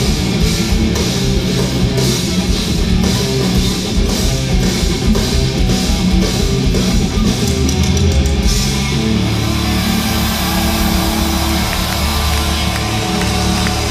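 Rock band playing loud live, with distorted guitar and drums, heard from within the audience. About eight seconds in, the steady drum beat stops and a held chord rings on.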